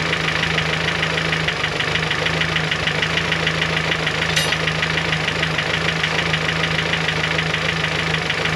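Turbocharged Honda G23 four-cylinder engine idling with a rapid, even ticking from the cylinder head, a tick the owner hears at cold idle and which goes away once the engine is at operating temperature. A single sharp click about four and a half seconds in.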